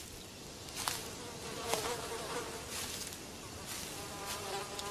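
Flies buzzing: a quiet, steady drone with a faintly wavering pitch.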